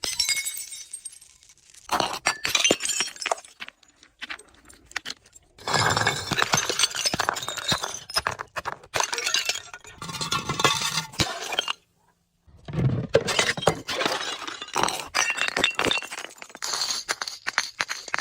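Glass bottles being crushed: dense runs of crunching, cracking and clinking glass with short pauses, starting up again about 2 s, 6 s and 12.5 s in.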